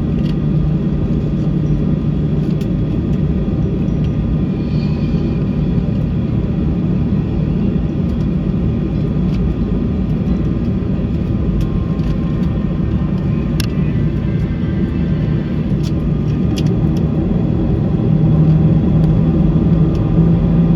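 Steady rumble of airliner cabin noise from the jet engines and airflow, with a low steady hum and a few faint clicks. About 18 seconds in the hum rises in pitch and gets louder as the engines power up.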